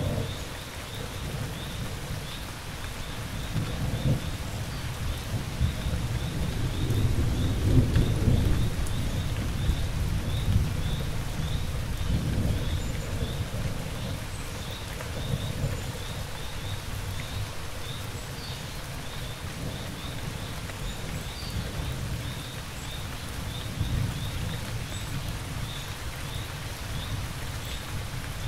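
Steady rain with rolling thunder: low rumbles come and go, the loudest building about eight seconds in, with lighter ones later. Crickets chirp in a regular high pulse underneath.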